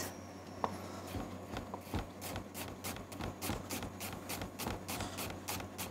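Chef's knife slicing a red onion thin on a plastic cutting board: a few scattered cuts, then from about two seconds in a steady run of quick knife taps against the board.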